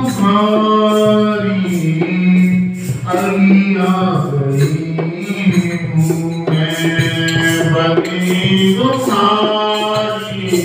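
A man singing a Hindi devotional bhajan to Radha into a microphone, holding long notes that bend slowly up and down, over a light percussion beat.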